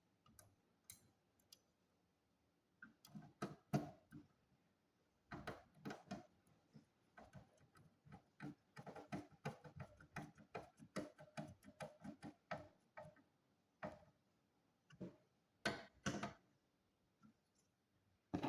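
A run of small, irregular clicks and taps, several a second at their densest, with short pauses between runs: hands working on a computer, its parts or its controls.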